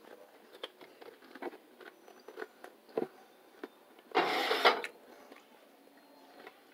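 Quiet eating sounds: scattered soft clicks and small knocks of cutlery and chewing. About four seconds in comes one louder, half-second scrape, a fork cutting into pancakes against a ceramic plate.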